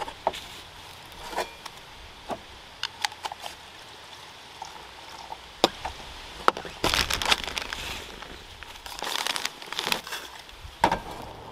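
Small plastic clicks and knocks from an AeroPress coffee maker's parts being handled and fitted together, with crinkling from a bag of ground coffee. Two longer crackly stretches come about two-thirds of the way in and near the end, where grounds are spooned out of the bag into the funnel.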